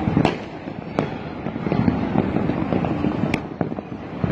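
Fireworks and firecrackers going off all over a city: a continuous rattle of distant pops and bangs, with a few sharper cracks standing out, one about a quarter second in, one at about a second, and one a little over three seconds in.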